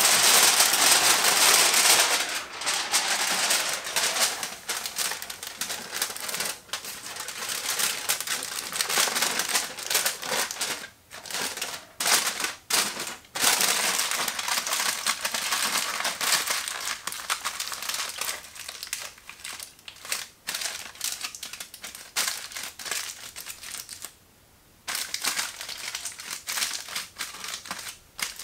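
Aluminium foil being crumpled and scrunched by hand, an irregular crinkling rustle, loudest in the first two seconds, with a few short pauses.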